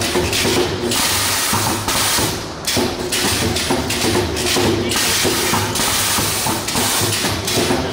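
Multi-point wire mesh spot welding machine running, with repeated knocks from the welding heads over a steady noisy din that keeps breaking off and starting again.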